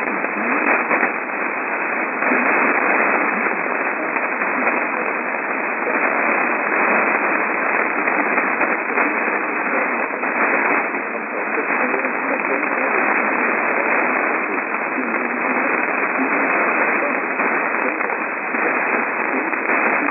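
Steady radio static: an even hiss from a weak or noisy received signal, confined to a narrow middle band with no deep bass or treble, wavering a little in loudness.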